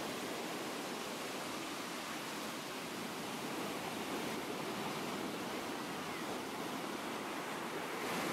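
Rough sea surf breaking and washing up the shore in a steady, unbroken rush, a little louder near the end.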